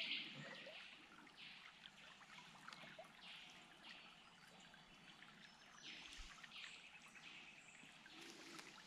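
Faint trickling and lapping of a shallow stream, with a few soft water sounds.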